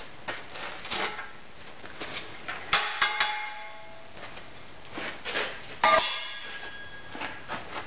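Freshly poured cast iron castings being knocked out of a sand mould and struck against a steel frame: a series of knocks and clangs, the loudest about three and six seconds in, each with a brief metallic ring.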